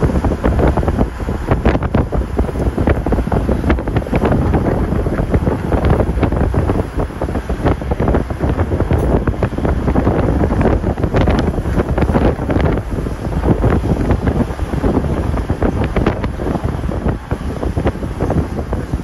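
Wind buffeting the microphone in uneven, rumbling gusts from a moving car, with the car's running noise beneath it.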